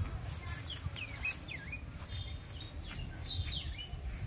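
Birds calling, many short chirps and whistles that sweep up and down in pitch, one after another, over a steady low rumble.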